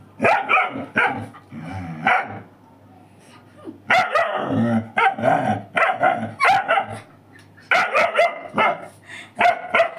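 A small dog barking repeatedly in quick clusters of short, fairly high-pitched barks, with a pause of about a second and a half around three seconds in.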